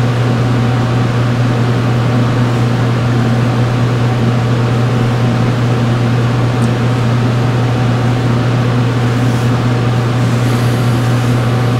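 Steady mechanical hum from running laboratory equipment: a strong low drone with fainter steady tones above it, unchanging throughout.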